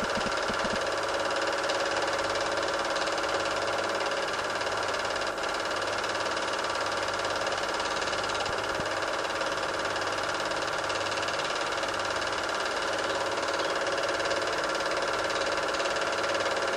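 Super 8 film projector running: a steady mechanical whirr with a constant hum, unchanging throughout.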